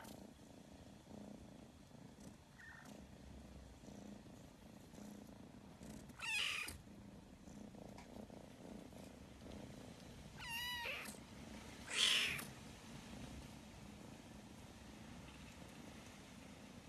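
Domestic cat purring steadily and softly, with a short wavering meow about ten and a half seconds in and two brief louder sounds around six and twelve seconds in.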